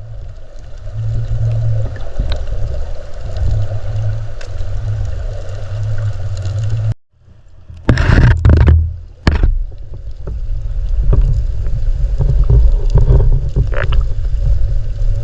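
River current rushing past a submerged camera, heard as a loud, muffled low rumble, with sharp knocks from the housing bumping or being handled. The sound cuts out briefly about halfway, and the loudest knocks come just after.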